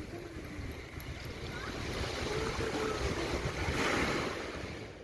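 Waves breaking on a sandy beach: a steady wash of surf that swells about halfway through, then fades and cuts off at the end.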